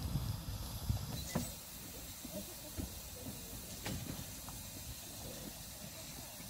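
Severn Lamb 15-inch-gauge steam locomotive standing with steam hissing steadily, broken by a few sharp knocks.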